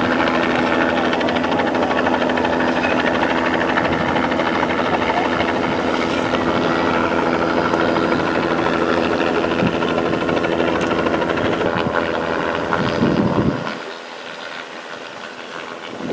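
Helicopter flying close by: a loud, steady engine-and-rotor drone with rapid rotor chop, which drops off sharply near the end.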